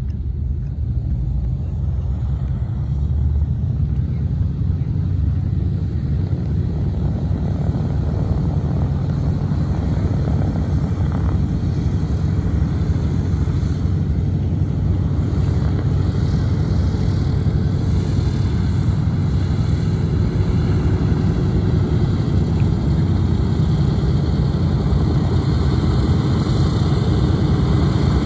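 Boeing B-17G Flying Fortress's four Wright R-1820 Cyclone radial engines running at low taxi power in a steady, deep rumble, growing gradually louder as the bomber taxis closer.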